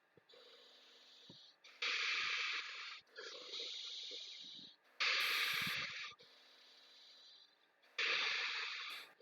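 A person breathing heavily and noisily. There are three loud, rushing breaths about three seconds apart, with softer breaths in between.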